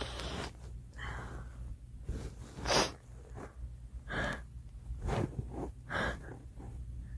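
A girl sneezing several times in a row, with sudden gasping breaths between the sneezes; the loudest, sharpest sneeze comes a little under three seconds in.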